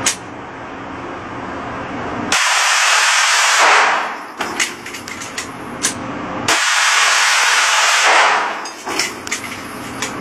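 Glock 19 pistol fitted with an auto sear firing fully automatic at a cyclic rate of about 1,200 rounds a minute. It fires two long bursts, each about a second and a half, so fast that the shots run together: the first about two seconds in, the second about six and a half seconds in. Scattered single sharp cracks come between the bursts.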